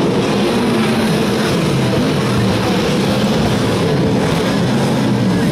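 Several sprint car V8 engines running at race speed on a dirt oval, their pitch rising and falling as the cars power through the turns.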